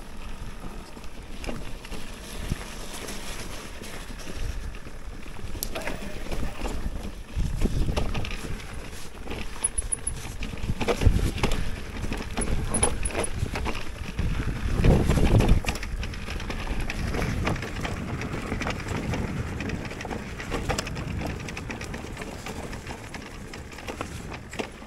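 Mountain bike riding down a trail of snow mixed with mud: steady tyre and trail noise with many small clicks and rattles from the bike, and louder low rumbles about eight, eleven and fifteen seconds in.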